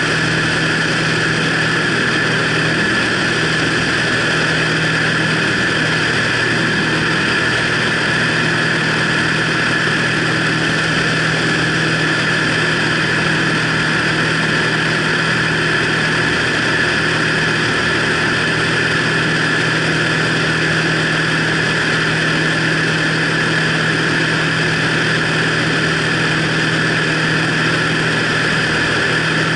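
Single-engine light aircraft's piston engine and propeller running steadily in flight, with wind rushing past a wing-mounted camera. The drone holds an even pitch throughout.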